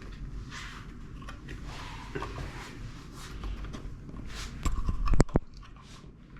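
Light switch being pulled out of its wall box: rustling, scraping and small clicks of the switch and its wires being handled, with a short cluster of sharp knocks about five seconds in.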